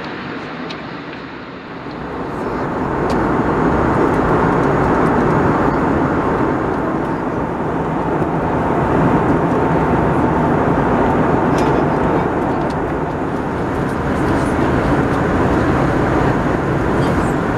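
Steady cabin noise of an Airbus A320 in cruise: the rush of air past the fuselage and the hum of its IAE V2527 engines, heard from a window seat. It grows louder about two seconds in, with a few faint clicks.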